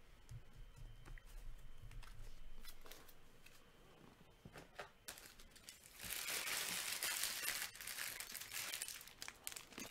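Faint taps and handling of trading card packaging, then from about six seconds in a few seconds of louder crinkling and tearing of a plastic wrapper being ripped open.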